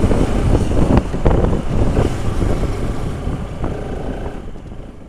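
Riding noise from a Bajaj Pulsar RS200 motorcycle under way: wind rushing over the microphone along with the bike running, with a few knocks. It gradually fades out toward the end.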